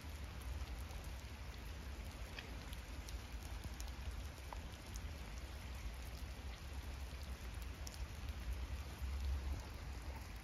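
Steady rain falling on wet ground and leaves, with scattered light drop ticks over a low steady rumble.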